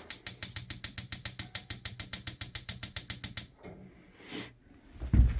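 Heater's spark igniter clicking rapidly, about eight sharp ticks a second, for roughly three and a half seconds before it stops: the heater is being lit and has not yet caught. A dull thump comes near the end.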